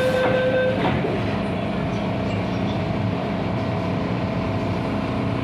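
Inside an MTR M-Train car: the steady door-closing warning tone cuts off less than a second in, a short thud follows as the doors shut, then the train's steady running rumble with a faint motor tone.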